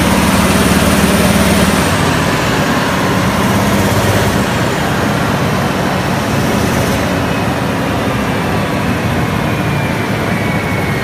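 The diesel engine of a 1998 Morbark 1300A tub grinder running steadily and loudly. From about nine seconds in, a thin high whine slowly falls in pitch.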